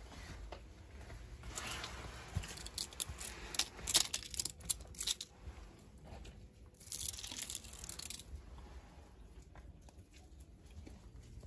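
Dry crackling and crinkling rustle in two spells: a busy one of about four seconds starting a second or so in, full of sharp crackles, then a shorter one about seven seconds in.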